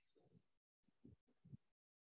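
Near silence, with a couple of faint, brief low sounds in the second half.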